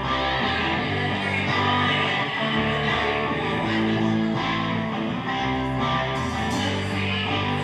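Live band playing amplified music through PA speakers, with strummed guitars to the fore.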